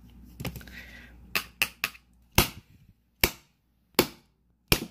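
A hand tool striking the aluminium back of an iPhone 7 over and over, denting it: a few lighter hits in the first two seconds, then four hard, sharp strikes a little under a second apart.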